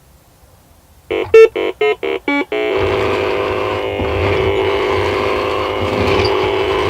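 Milton Bradley Big Trak toy: six short keypad beeps about a second in, as it is programmed. Then its drive motor and gearbox run with a steady whine and a low rumble, from a gearbox fault.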